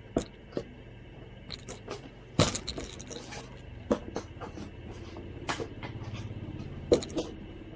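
Cardboard box and foam packing inserts being handled: scattered knocks and scrapes, the loudest about two and a half seconds in and again near the end, with a short stretch of rustling after the first.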